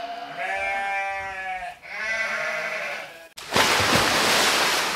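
Two long, wavering, sheep-like bleats one after the other, then a sudden loud burst of hiss about three and a half seconds in that slowly fades.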